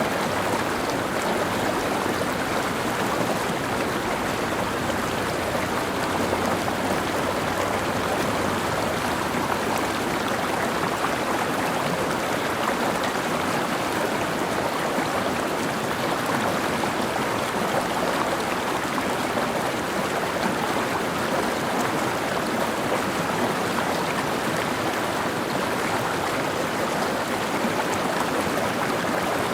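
Mountain stream flowing over rocks: a steady, even rush of running water.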